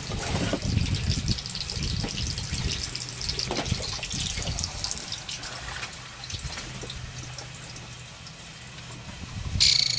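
Water running and splashing steadily: a hose jetting water down a 4-inch ABS pipe to wash it down into the ground. A brief louder hiss comes near the end.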